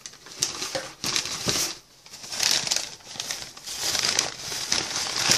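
Crumpled paper packing rustling and crinkling in irregular bursts as a hand digs through a cardboard shipping box.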